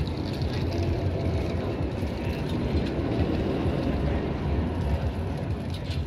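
Ice Breaker steel roller coaster train rolling along its track on a test run, a steady rumble as it approaches.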